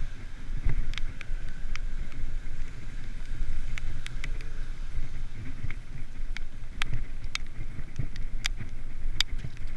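Wind buffeting the microphone of a bicycle being ridden, a steady low rumble, with scattered sharp ticks and clicks throughout.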